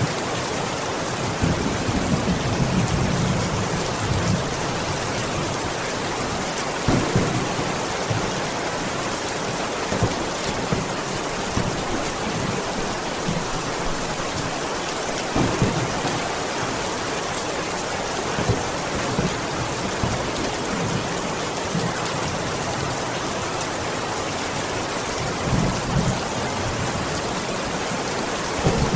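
Steady heavy rain beating on a window, with a low rumble of thunder a couple of seconds in and a few short, louder low knocks scattered through.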